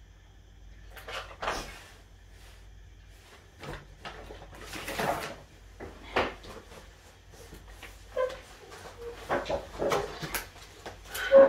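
Household knocks, clatters and rustles of a person moving about and coming through a door, in irregular bursts, with a louder short sound near the end.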